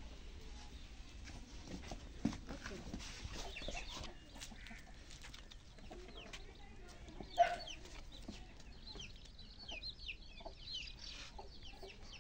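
Birds chirping in a rapid run of short, high, falling calls through the last third, with scattered knocks earlier and one sharp knock just past the middle.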